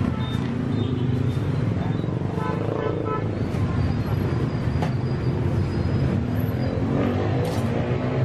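Busy street ambience: a steady low hum of traffic and engines, with faint background voices and a couple of sharp clicks.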